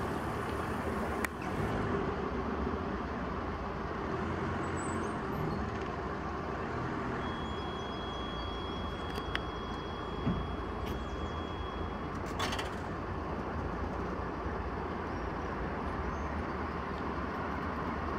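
Steady street traffic noise from nearby vehicles, with a few sharp clicks and a high steady beep lasting a few seconds midway.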